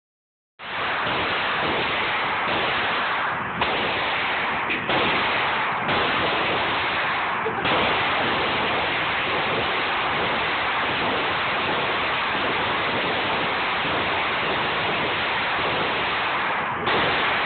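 Gunshots at a shooting range through a phone microphone: a loud, steady rushing noise broken by about five sudden jolts, each a shot.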